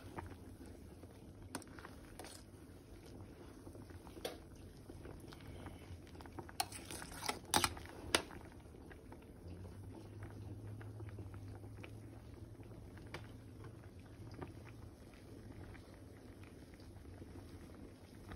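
Pot of sour fish soup with vegetables bubbling at a boil. A few sharp clicks or taps stand out, the loudest about seven to eight seconds in, and a low hum sounds for several seconds in the middle.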